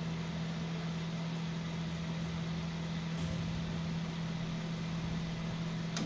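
Microwave oven switched on and running with its cover off: a steady hum over the even rush of its cooling fan.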